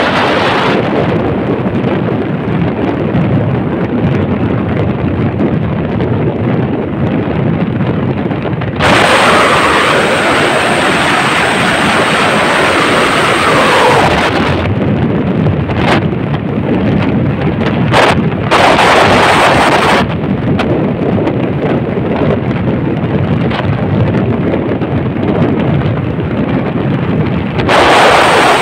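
Wind buffeting the microphone and road noise from a moving vehicle: a loud, steady rumbling hiss that turns brighter and harsher for a few stretches.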